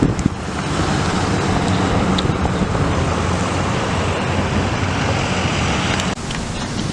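A car driving: steady engine and road noise with wind rushing, dipping briefly about six seconds in.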